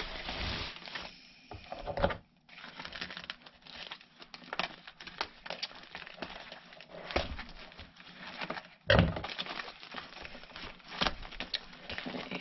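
Woven plastic sack of tarp-like material, the kind bird seed comes in, rustling and crinkling as hands grip it and work at the twine tied round its neck, with a louder thump about nine seconds in.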